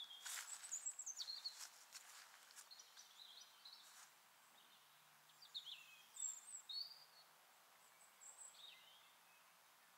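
Footsteps on a path for the first couple of seconds, then scattered short bird chirps and calls, some sliding down in pitch, over a faint outdoor background.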